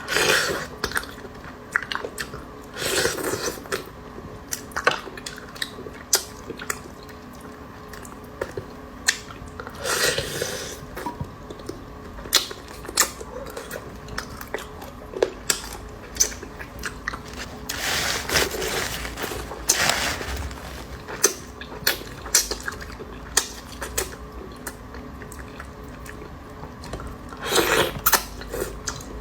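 Close-up chewing and biting of large beef meatballs, with wet mouth sounds and many irregular sharp clicks, and louder bursts now and then.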